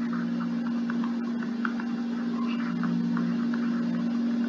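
A steady electrical hum runs under a faint hiss of recording noise, with scattered light ticks.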